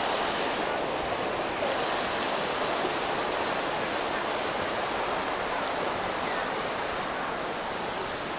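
Steady rush of a shallow, rocky river flowing over stones in small rapids, growing slightly fainter near the end.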